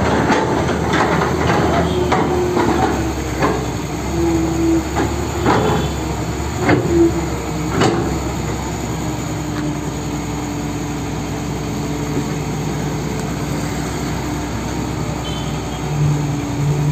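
Hydraulic excavator running steadily as its bucket digs in a trench of wet earth, with a run of knocks and scrapes from the bucket during the first eight seconds or so, then a steady hum.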